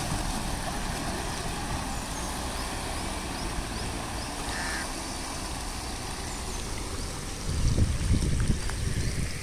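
Motorcycle riding away through a flooded street, its engine running and its wheels splashing through the water, fading as it goes, over a steady hiss of water. A louder low rumble comes in near the end.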